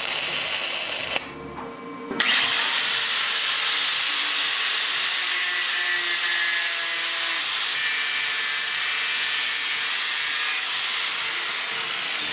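Electric grinder starting about two seconds in, its whine rising quickly to a high steady pitch as it runs and cuts, then falling away near the end as it winds down.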